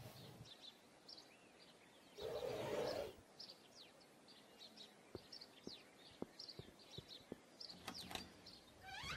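Faint chirping of small birds: many short, high chirps, each sliding down in pitch. About two seconds in there is a brief rushing noise, and a few soft clicks come later on.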